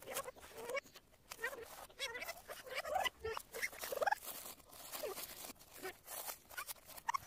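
A baby babbling and squealing in short calls that rise and fall in pitch, with the crackle of crumpled wrapping paper in between.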